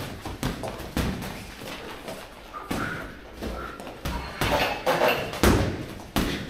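Boxing gloves landing in close-range sparring: a run of irregular thuds as punches hit gloves, headgear and body, the hardest a little past five seconds in.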